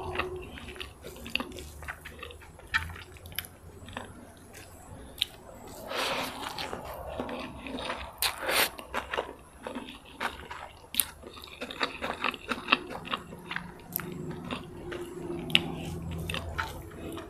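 Close-miked eating: chewing and biting a mouthful of fried rice vermicelli with bean sprouts, with irregular mouth clicks and small crunches.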